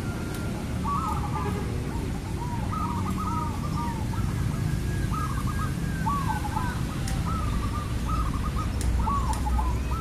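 Zebra dove (perkutut) cooing: repeated phrases of short, quick, rising-and-falling notes, over a steady low background rumble.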